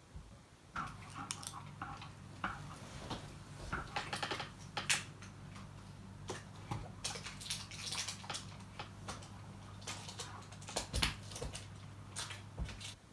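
Irregular small clicks, taps and rustles of plastic kit parts being handled and fitted by hand, over a steady low hum.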